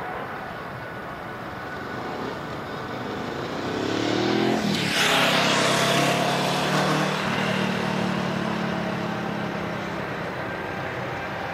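Distant jet engines of a Boeing 787 running at low power on the runway, a steady whine. About four to six seconds in, a road vehicle passes close by, its engine note dropping in pitch as it passes and then fading.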